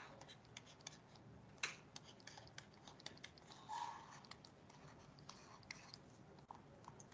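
Near silence with faint, irregular clicks and taps from a stylus writing on a pen tablet.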